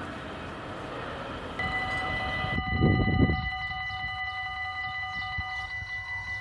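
A steady outdoor rush of noise, then about a second and a half in a railway level-crossing warning bell starts ringing steadily and keeps on. A brief loud low rumble breaks in around the three-second mark.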